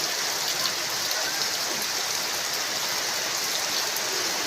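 Heavy rain falling: a steady, even hiss of rain with scattered drop ticks.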